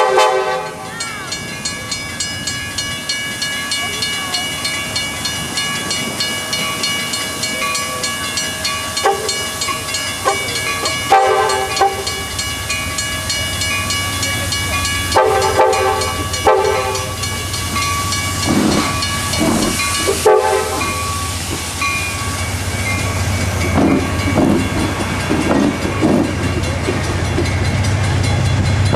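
Amtrak California cab car's K5LA air horn sounding several short and long blasts over a steadily ringing bell as the train departs. Near the end the low rumble of the train, pushed by a P42DC diesel locomotive, grows louder as it draws alongside.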